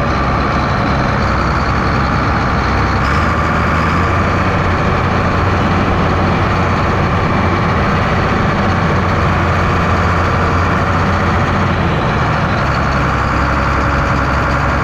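Allis-Chalmers farm tractor's diesel engine running steadily under load, pulling a heavy loaded manure spreader across a field.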